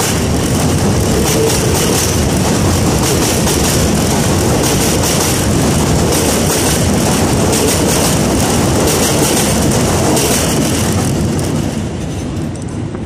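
New York City Subway train cars rolling past close at wheel level: steel wheels on the rails with a steady rumble and many sharp wheel clicks. The noise drops near the end as the last car clears.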